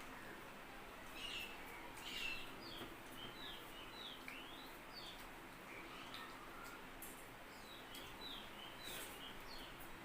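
Small birds chirping over a low hiss: many short, quick chirps that each slide downward in pitch, a few every second, with some faint clicks among them.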